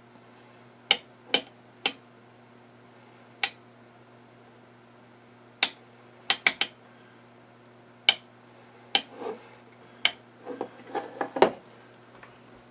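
Sharp clicks and light taps at irregular intervals, about fifteen in all and thicker towards the end, over a steady low electrical hum.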